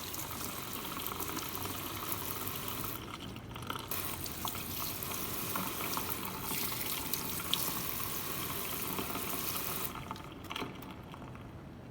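Water running from a tap into a sink as things are washed, with a steady splashing hiss that thins briefly about three seconds in and stops about ten seconds in, when the tap is turned off.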